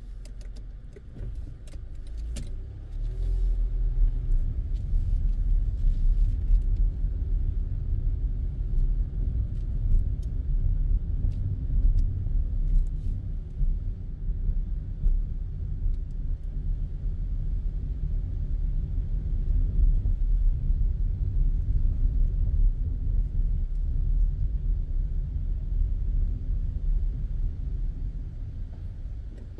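Low rumble of a car driving slowly, heard from inside the cabin: engine and tyre noise that grows louder about three seconds in as the car gets moving, with a few light clicks near the start.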